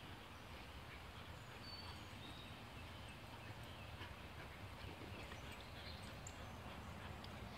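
Faint outdoor ambience: a steady hiss with soft, irregular scuffling of puppies playing on grass and dirt, and a few short, high bird chirps.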